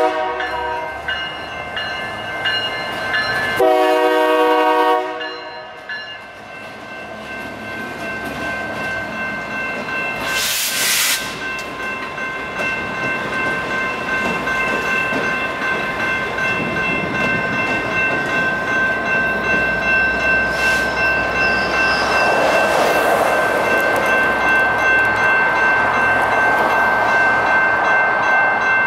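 Union Pacific freight train led by EMD SD59MX diesel locomotives sounding its horn for the grade crossing: a short blast at the start, then a loud long blast about four seconds in. After a brief hiss, the locomotives and freight cars roll through with rhythmic wheel clatter, under the steady tones of the crossing's electronic bell.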